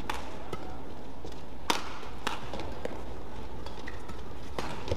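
Badminton rackets striking a shuttlecock in a rally: several sharp hits a second or so apart, the loudest a little under two seconds in, with court shoes squeaking and steady hall noise underneath.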